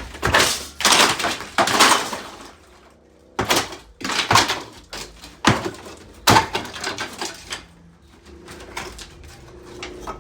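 Interior demolition: a run of loud bangs and crashes from building material being struck and torn out, about seven heavy hits in the first seven seconds, then quieter knocks toward the end.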